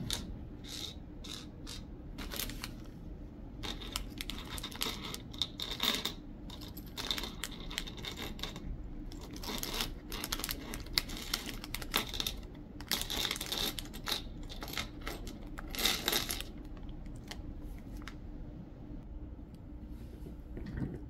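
A small clear plastic bag of Lego pieces crinkling as it is handled, and small plastic Lego pieces clicking and clattering as they are tipped out onto a tabletop. The sounds come in repeated short bursts and die down near the end.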